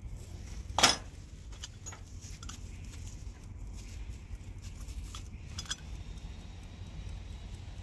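Scrap metal tools clinking as they are handled in a wire-mesh scrap basket: one sharp metal knock about a second in, then a few lighter clicks and taps.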